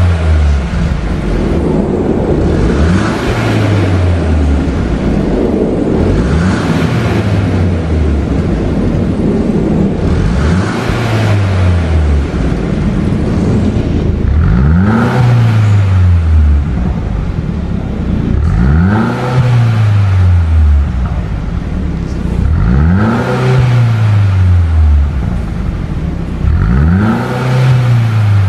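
Mercedes-Benz W205 C250/C300 engine heard through a TNEER aftermarket exhaust, revved repeatedly. Each rev rises and falls back over about two seconds, coming about every four seconds, with the engine running steadily between them.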